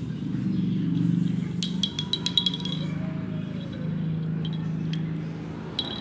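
Light metallic clinking: a quick run of ringing taps for about a second near the middle, then a few single clinks, over a low steady hum.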